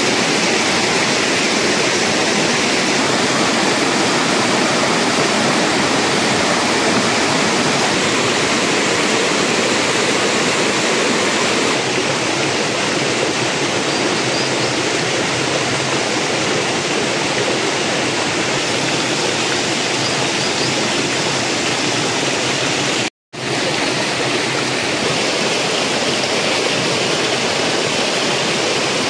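Shallow mountain stream rushing over rocks and boulders, a loud, even rush of water. It cuts out for a split second about three-quarters of the way through.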